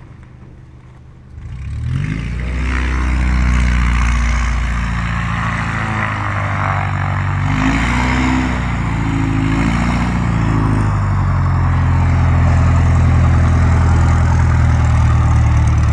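Light bush plane's piston engine and propeller running as it taxis up close. It swells in loudness about a second and a half in, its pitch rises and falls for a few seconds in the middle with throttle changes, and it then runs steady and loud.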